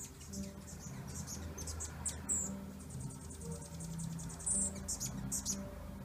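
Hummingbirds chirping: short, high-pitched chips scattered through, the loudest about two seconds in and again near the end, over a fast faint high ticking.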